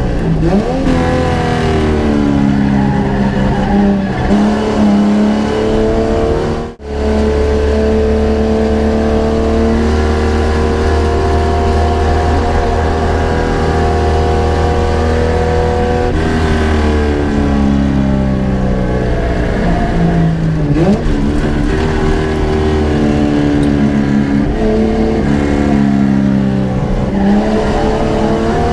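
Holden HQ race car's engine heard from inside the car under hard acceleration, its pitch climbing and dropping through the gear changes. It holds a steady high note for about ten seconds, falls as the car lifts and shifts down, and climbs again near the end; the sound cuts out for an instant about seven seconds in.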